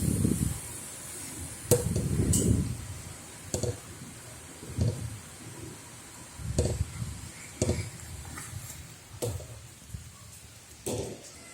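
Rain falling as a steady hiss, broken every second or two by short, loud low thumps and sharp clicks.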